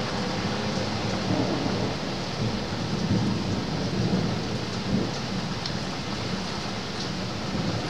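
Steady rain falling, with a low rumble of distant thunder swelling and fading beneath it.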